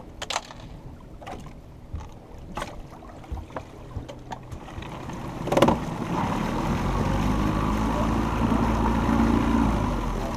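Scattered clicks and knocks of gear being handled on a fishing boat's deck, with one loud knock about five and a half seconds in. Then the boat's motor runs with a steady low hum while water rushes along the hull.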